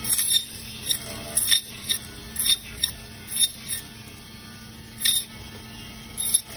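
Band saw slicing frozen fish into steaks: the motor hums steadily while the blade gives irregular short scraping bursts, about ten of them, as it bites through the frozen flesh and bone.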